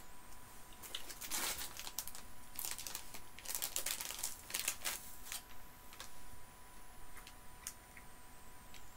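Plastic sweet packet crinkling as it is handled, in irregular bursts over the first five seconds or so, then only a few faint clicks.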